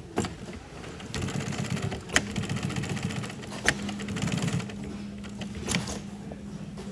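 Sewing machine stitching back tacks around nylon webbing, with a fast run of stitches from about a second in to past the middle, over a steady motor hum. Several sharp clicks come between the stitching runs.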